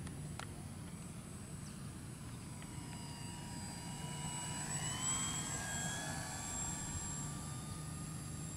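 Electric RC model plane flying past. The motor and propeller whine rises slightly in pitch as it approaches, is loudest about five seconds in, then drops in pitch as it moves away.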